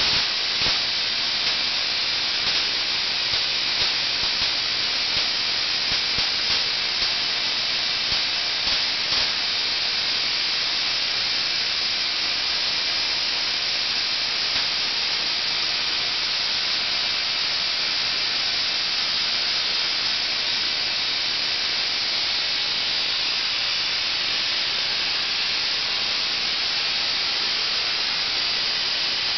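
Homemade Tesla coil driven by a 12,000-volt neon sign transformer, firing continuously: a loud, steady hissing buzz of its sparks and of the arcs thrown from the top load.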